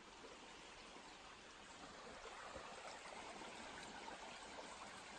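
Faint, steady sound of a shallow creek running over rocks, growing slightly over the first couple of seconds.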